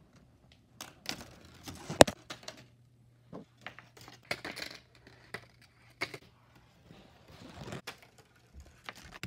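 A marble rolling and dropping down a marble run of paper chutes held with painter's tape: an uneven string of clicks, knocks and rattles, the loudest about two seconds in, with short rolling rustles between them.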